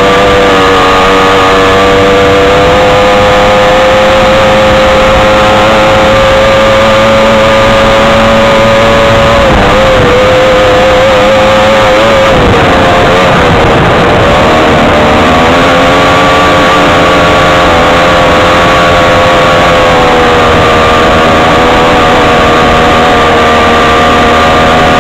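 Odyssey off-road vehicle's engine running hard under load, close and loud. The revs hold steady, drop and waver about ten to fourteen seconds in as the throttle eases, then climb back up and hold.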